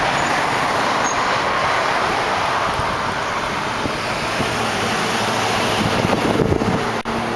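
Steady rushing noise of passing road traffic.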